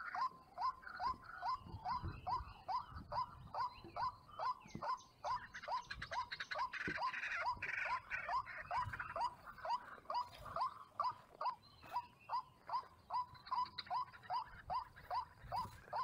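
White-breasted waterhen calling, a long unbroken run of short 'wak' notes, each sliding up in pitch, repeated about two and a half times a second.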